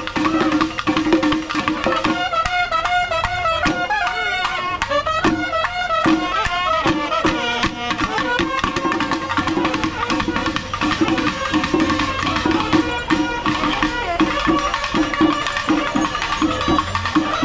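Kerala temple-festival ensemble playing: dense, fast drumming with long brass horns sounding wavering, sliding notes, strongest from about two seconds in for some five seconds.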